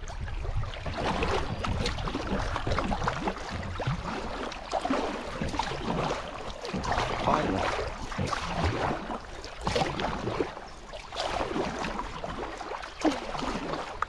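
Kayak paddle strokes and water splashing and rippling around the hull on a choppy stretch of river with small waves.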